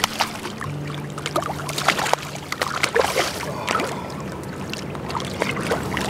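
A hooked pink salmon thrashing in shallow water, with irregular splashes as it is grabbed and landed by hand.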